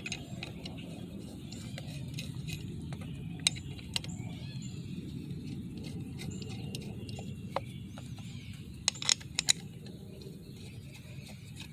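A few sharp metallic clicks and clinks of hand tools and bolts while bolts are being started and snugged on the truck's engine, over a low steady background rumble.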